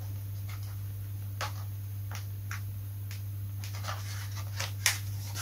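Faint, scattered rustles and light ticks of fingers pressing and smoothing an adhesive sticker onto a foam model jet's fuselage, with one sharper click near the end, over a steady low hum.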